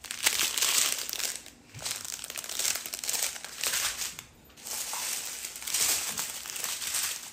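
Thin plastic bags of diamond-painting drills crinkling as a strip of them is handled and laid out, in three or so rustling spells.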